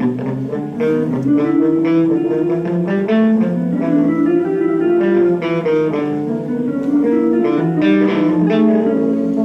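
Live electric guitars, one of them a hollow-body, playing plucked notes that ring on and overlap one another through amplifiers.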